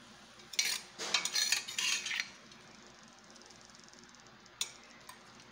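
A spoon scraping and scooping shredded machaca in a stainless-steel pan, a quick run of scrapes lasting about a second and a half, then a sharp clink near the end and a smaller one just after.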